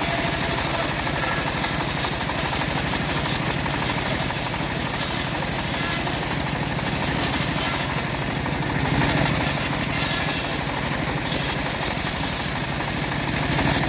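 Stihl MS381 two-stroke chainsaw running steadily at high speed.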